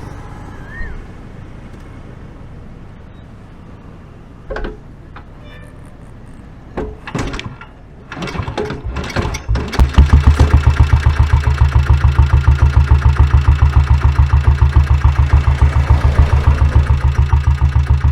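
1996 Royal Enfield diesel Bullet's single-cylinder diesel engine being started, picked up close to the exhaust pipe. After a couple of knocks it turns over unevenly, catches about ten seconds in, and settles into a loud, steady idle with an even beat.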